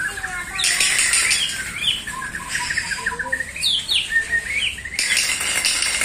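Birds calling with many quick chirps and rising and falling whistled notes, broken by two harsh, noisy bursts, about half a second in and again about five seconds in.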